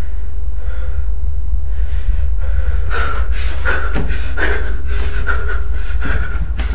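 A man breathing heavily, panting in quick noisy breaths about twice a second that start a couple of seconds in, over a loud steady low drone.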